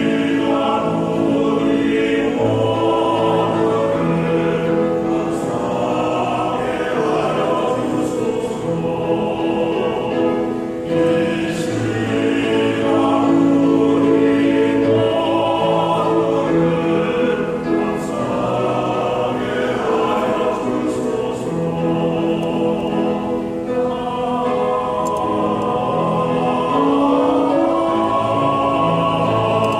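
A small church choir singing a hymn, with long held notes.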